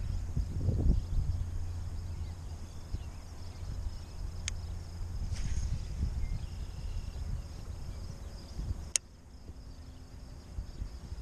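Wind rumbling on the microphone over a steady faint high hum of insects, with a few sharp ticks; the rumble drops away near the end.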